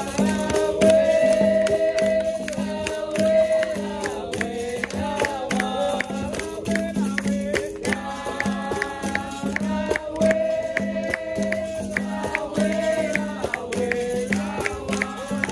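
Capoeira roda music: voices singing together over a berimbau and hand percussion, with steady rhythmic strikes. The sung phrase repeats about every eight seconds.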